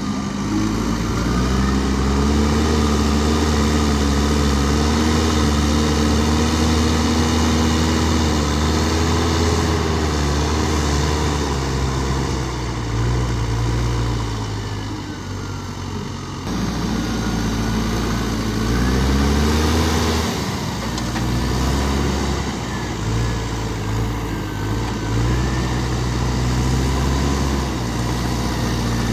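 Diesel engine of a JCB backhoe loader running at work, its revs rising and falling as it digs and loads. There is a sudden cut about halfway through, and the revs climb again a few seconds later.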